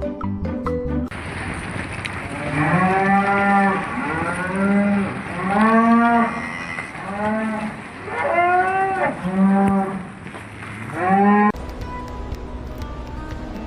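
An animal calling repeatedly with a series of about eight short moo-like bawls, each rising and then falling in pitch.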